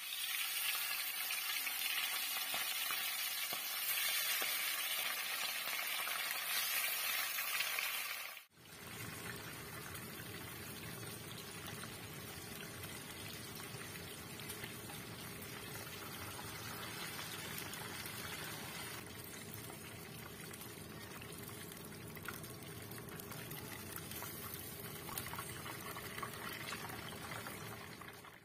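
Sea bass pieces frying in hot oil in a pan, a steady sizzle. It is louder and hissier for the first eight seconds, breaks off briefly, then goes on quieter and even.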